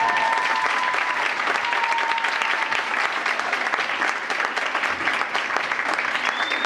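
Audience applauding, a dense steady clatter of clapping. A held high tone fades out over the first few seconds, and a brief higher tone sounds near the end.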